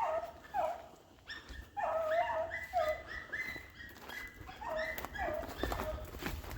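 A rabbit-hunting dog yelping and bawling over and over in short cries that bend in pitch, heard at a distance. The hunters take it to mean the dog is not happy.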